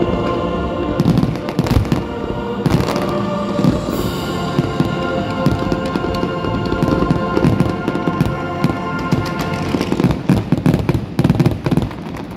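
Fireworks going off in repeated bangs and crackles, with a dense run of crackles near the end, over loud music with sustained notes.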